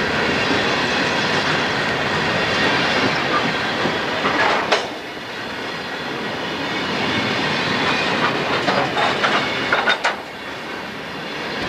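Coal hopper cars rolling past on the rails: a steady rush of wheel and rail noise, with clusters of clacks from wheels passing over rail joints about four and a half seconds in and again near the end.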